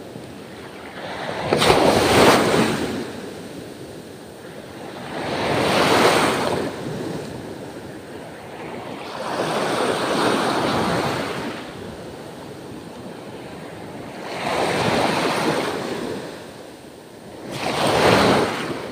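Small waves washing in over the shallows at the shoreline, each surge swelling and fading away, five in all about every four seconds.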